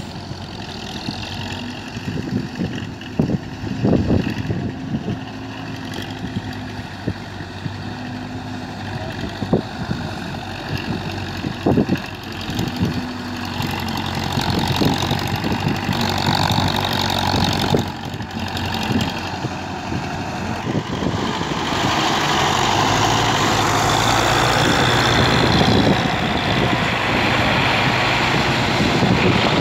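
Diesel engines of Belarus tractors running at work, with a few sharp knocks in the first half. From about two-thirds of the way through, the engine sound grows louder and brighter as a tractor pulling a loaded trolley comes close.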